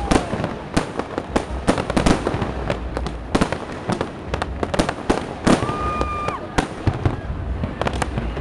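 Fireworks going off in rapid, irregular succession: a dense run of sharp cracks and bangs from launches and bursts, several a second, over a low rumble.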